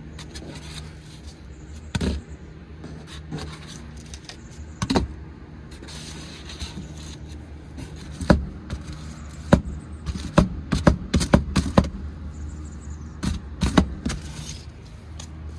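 Electric exhaust fan running with a quiet, steady hum, which the owner feels is bogging down for lack of intake air through a partly closed louver. Sharp clicks and knocks come at irregular times over it, most of them about ten to twelve seconds in.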